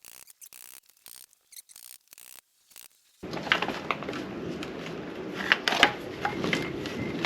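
Near silence for about three seconds with a few faint ticks, then small metallic rubbing, scraping and clicks as a rusty motorcycle fork tube is worked through its loosened clamp.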